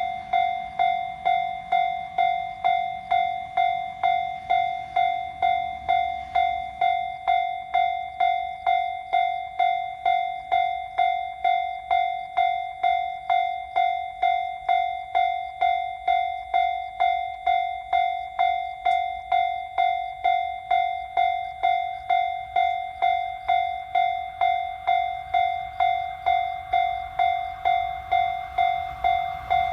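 Japanese railway level-crossing warning bell ringing in an even, repeating ding-ding, about two strokes a second on one steady pitch, warning that a train is approaching.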